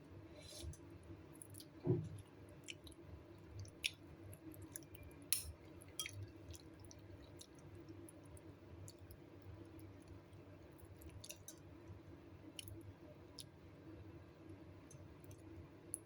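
Quiet eating: faint chewing with scattered light clicks and taps, and one louder thump about two seconds in.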